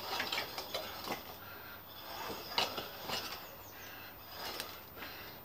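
Faint scattered clicks and knocks from a small petrol garden tiller being handled, its engine not running after failed cold-start attempts.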